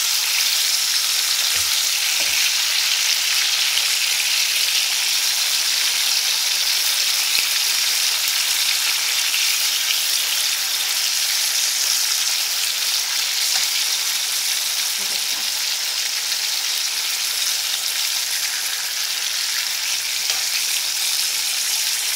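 Masala-stuffed green chillies sizzling in shallow oil in a kadhai over a high flame, a steady hiss, while being turned with tongs.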